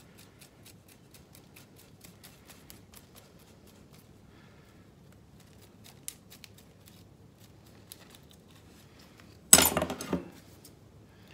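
Wooden stick picking and scratching through the soil and fine roots of an Elaeagnus ebbingei bonsai's root ball, a run of faint quick ticks. About nine and a half seconds in comes a loud, rough rustling burst of under a second as the root ball is handled.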